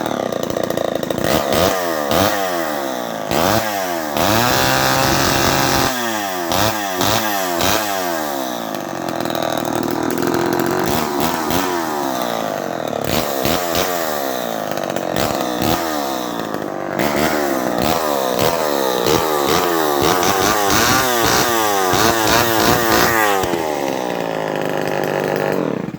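Vintage Homelite XL-901 two-stroke chainsaw running again on new fuel lines, its throttle blipped over and over so the engine pitch sweeps up and down, with a few longer stretches held at high revs. The engine cuts off abruptly at the very end.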